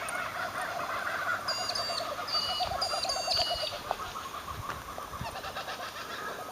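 Laughing kookaburras calling together, a chorus of fast repeated cackling notes that is strongest in the first few seconds and dies down after.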